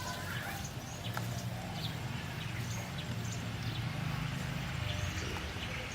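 Outdoor ambience: scattered short, high bird chirps over a steady low rumble.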